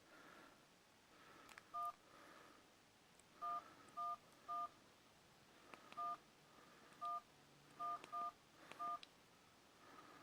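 Sony Ericsson K810i keypad tones: nine short two-tone DTMF beeps, all at the same pitch and unevenly spaced, as buttons are pressed. Faint button clicks come in between.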